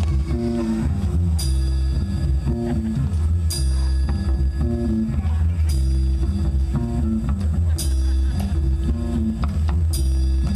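Live rock band playing an instrumental intro: a repeating bass riff under electric guitar, with a drum kit crashing a cymbal about every two seconds.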